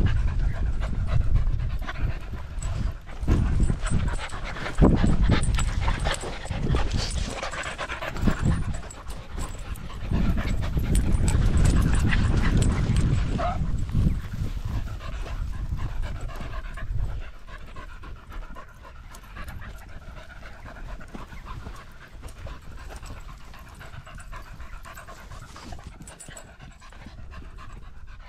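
A dog panting hard close by, with a low rumble over the first half that dies away after about seventeen seconds.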